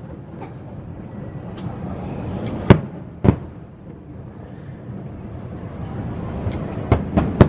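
Fireworks shells bursting in the sky with sharp bangs: two loud ones a little over half a second apart near the middle, a quick cluster of three near the end, and fainter pops in between.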